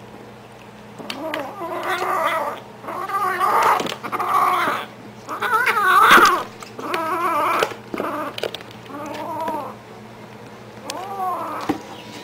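Hungry kitten yowling angrily over its food, a string of about eight drawn-out, wavering calls, the loudest about six seconds in.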